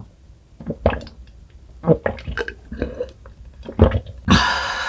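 Close-miked chewing and wet mouth sounds of eating dessert, in short irregular bursts. About four seconds in, a loud steady sound with several pitches starts and carries on.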